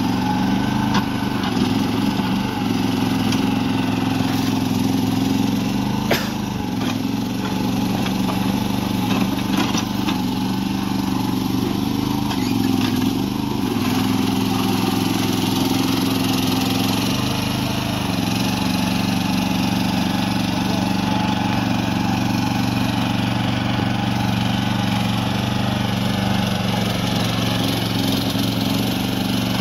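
Mini excavator's small engine running continuously, its pitch wavering through the first half as the arm and bucket are worked, then holding steady. A few sharp knocks in the first half.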